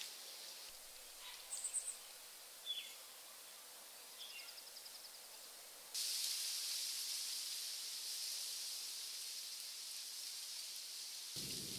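Outdoor nature ambience: a few short bird chirps, falling calls and a brief trill in the first half. About halfway through, a louder steady high hiss comes in abruptly.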